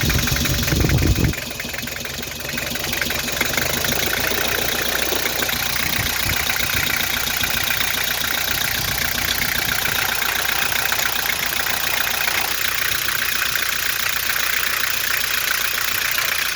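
Nissan TD27 four-cylinder diesel engine idling with a steady diesel clatter, running rough: it is misfiring, a fault later traced to cylinder number four. A loud low rumble comes in the first second or so.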